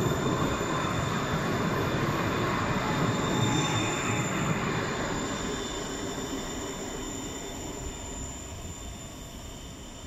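Astra Imperio Metropolitan tram running past close by on its rails: a dense rumble of wheels on track with a steady high whine over it, fading away over the second half.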